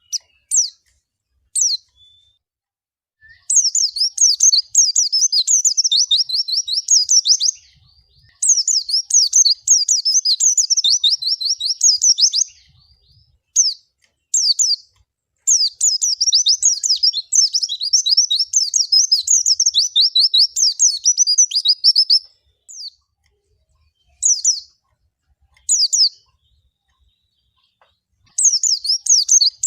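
White-eye (pleci) singing: long bursts of rapid, high warbling several seconds each, separated by short single call notes and pauses.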